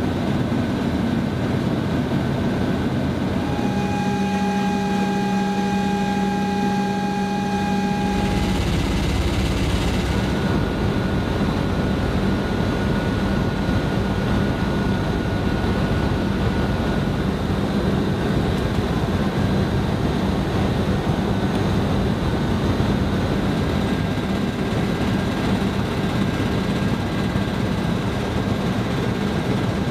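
Steady drone of a V-22 Osprey tiltrotor heard from inside the troop cabin in flight: loud rotor and engine noise over a constant low hum. For a few seconds near the start a cleaner set of steady whining tones sits over it with less rumble, then the full low rumble returns.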